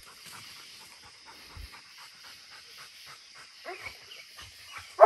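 Coonhound panting quickly and steadily at the tree, with a short whining cry about three and a half seconds in, then breaking into a loud bark at the very end.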